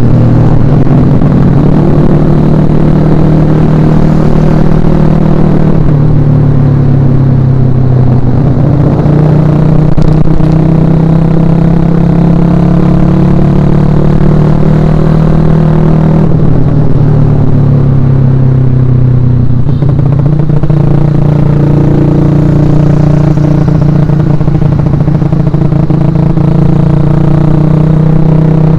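Suzuki Shogun Axelo R's single-cylinder four-stroke engine running under way. Its pitch climbs and drops back several times as it is shifted up through the gears and eased off.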